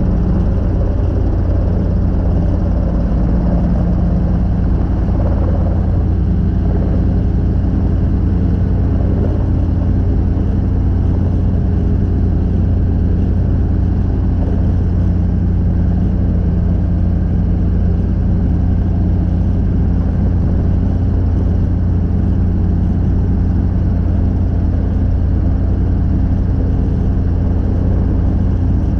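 Robinson R22 helicopter's piston engine and two-bladed main rotor running steadily while hover-taxiing, heard from the cockpit: a loud, steady low drone.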